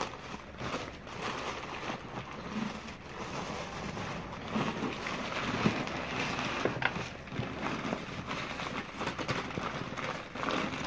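Rustling and crinkling of packing paper and cardboard as items are unwrapped and lifted out of a box, with small knocks and clicks of things being handled and one sharper knock about halfway through.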